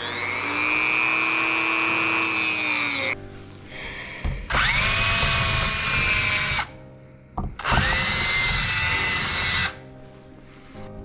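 A handheld rotary tool with a cut-off wheel spins up and runs for about three seconds against the steel outlet of an Akrapovic slip-on muffler. Then a cordless drill runs twice, about two seconds each time, drilling at the spot welds that hold the dB killer inside the outlet pipe.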